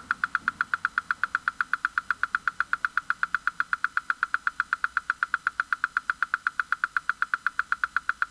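Vintage 1970s TELL mechanical watch ticking steadily: quick, evenly spaced ticks, several a second, from a movement just wound and running.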